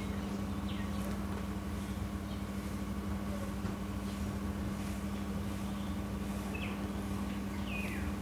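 A steady low mechanical hum with a few short falling chirps, likely from a bird, about midway and near the end.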